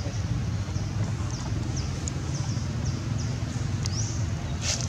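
Outdoor ambience: a steady low rumble under a run of short, high-pitched chirps repeating two or three times a second, with one sharp click near the end.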